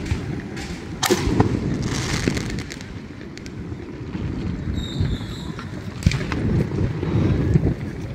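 Fireworks going off: a continuous low rumble of distant booms with sharp bangs about a second in and again about six seconds in, the first followed by a second or so of dense crackling.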